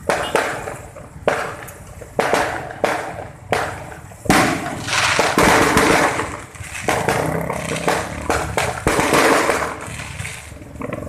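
Fireworks going off: a string of sharp bangs about a second apart, some followed by a few seconds of crackling hiss.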